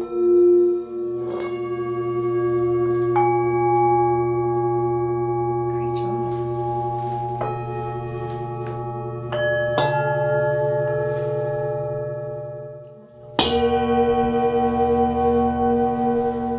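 Tibetan singing bowls are struck one after another, about half a dozen strikes. Their pure ringing tones overlap and sustain in a layered chord. The sound almost fades out, then a loud new strike rings out near the end.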